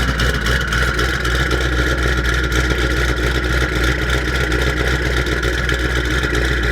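Twin-turbo Shelby GT500 V8 with a Corsa Extreme active catback exhaust running steadily, a constant low drone with no revving.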